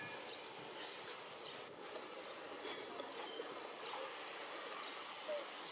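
Outdoor forest ambience: a thin, steady high-pitched insect drone with faint, scattered short chirps.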